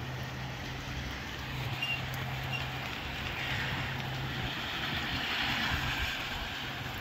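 Gusty wind with rain, a hiss that swells louder between about three and a half and six seconds in, over a steady low hum.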